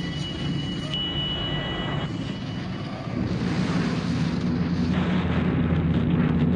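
Transport aircraft engines droning with a loud rush of wind, as heard during a parachute jump from the aircraft's door.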